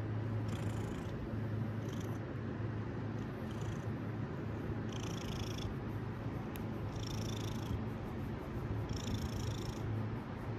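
Domestic cat purring steadily while being petted, a continuous low hum, with a faint hiss coming back about every two seconds.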